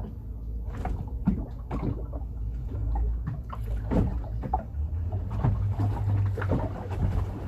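Steady low rumble of a running boat motor, with scattered knocks and clatters on top.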